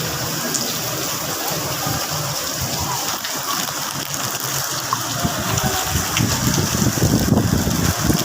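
Heavy rain pouring in a steady hiss of water, with an irregular low rumble that grows louder over the last few seconds.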